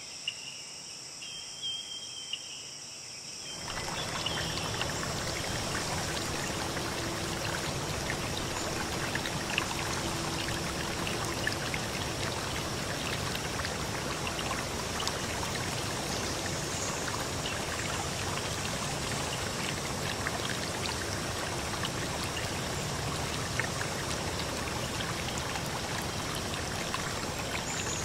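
Insects chirring quietly at first; about three and a half seconds in, a stream's flowing water comes in suddenly and runs on steadily, with small splashes and drips through it.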